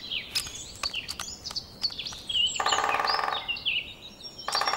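Great spotted woodpecker drumming on a hollow tree trunk as its courtship display: two short, very rapid rolls, the first about halfway through and the second starting near the end. Small birds chirp and sing throughout.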